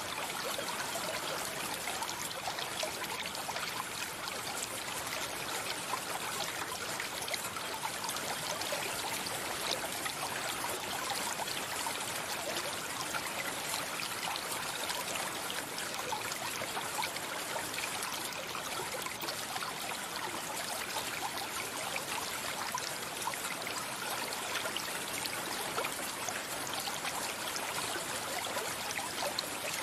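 Stream water flowing steadily, a continuous trickling and splashing.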